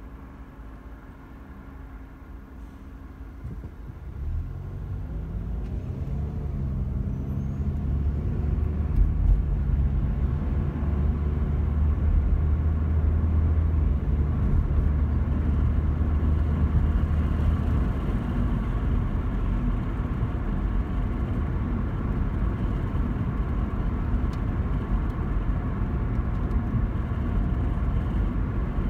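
Car heard from inside the cabin: a quiet engine idle at first, then about four seconds in the car pulls away, its engine note rising as it accelerates. It settles into a steady low engine drone and tyre rumble while cruising.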